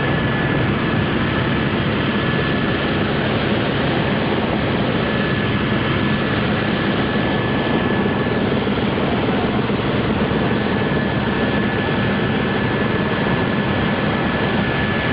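Helicopter in flight: steady engine and rotor noise with a thin, constant high whine over it.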